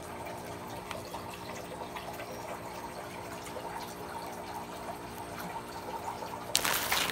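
Handling noise as shrink-wrapped packs of disinfecting wipes are moved in a cardboard box: faint rustling over a steady low hum, with a brief loud rustle near the end.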